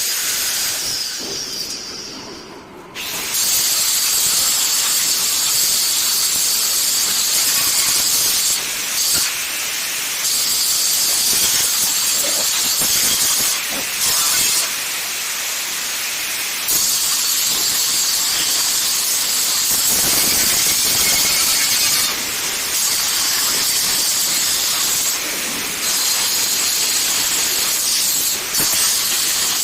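Angle grinder grinding down a metal gate, a loud steady hissing rasp. It fades out about two seconds in and cuts back in abruptly a second later, then runs on with several brief dips.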